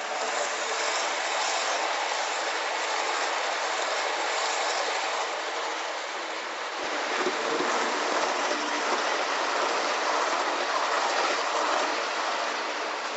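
HO-scale model passenger train running along the layout's track: the wheels and motor make a steady rolling noise that gets a little louder about halfway through as the train passes close by.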